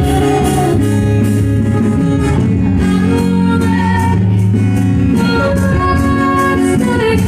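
Music with singing over guitar, loud and steady.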